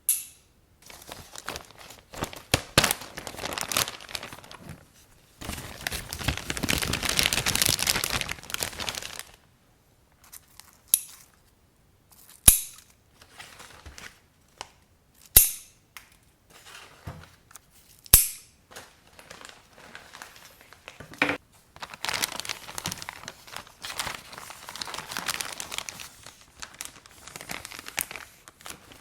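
Rustling and crinkling from hands working with food or packaging, broken by about five sharp clicks or knocks.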